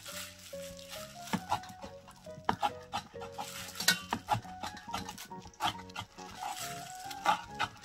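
Kitchen scissors snipping again and again through soaked seaweed stems on a cutting board, a quick irregular series of sharp snips, over background music.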